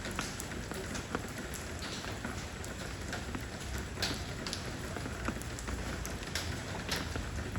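Steady rain falling on stepping stones, a continuous hiss with many separate drops pattering and splashing at irregular moments.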